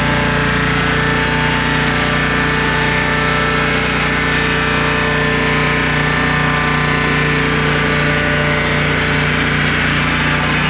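Engine of a Turbosawmill swingblade portable sawmill running steadily with its circular blade, a constant loud note with no let-up.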